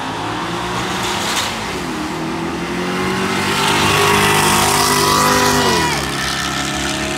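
Two drag-racing cars, one a Mercedes-AMG, running down the strip at full throttle. Engine pitch climbs, drops at a gear change about two seconds in, climbs again, then falls sharply about six seconds in.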